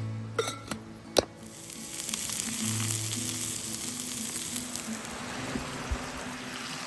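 Food frying in a hot pan: a few sharp clicks in the first second or so, then a steady sizzle that swells up and holds.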